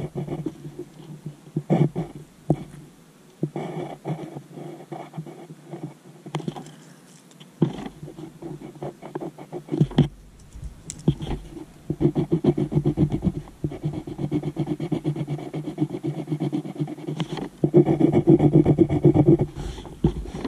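Pencil scribbling and shading on lined paper right next to the microphone: runs of rapid back-and-forth strokes with short pauses between. The heaviest runs come about twelve seconds in and near the end.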